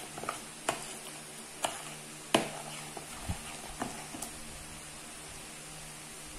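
Metal spoon stirring a runny sour-cream and melted-butter dough mix in a mixing bowl, knocking against the bowl in irregular clicks that stop about four and a half seconds in, over a faint steady low hum.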